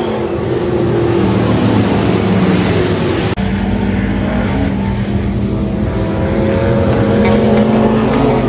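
Several dirt-track stock car engines racing around an oval, their engine notes overlapping, with an abrupt change in the sound about three seconds in.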